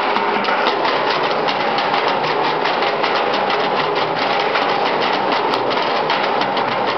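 Several players drumming fast with sticks on large barrels whose tops hold water, the strokes splashing the water up; a dense, unbroken stream of hits, many per second.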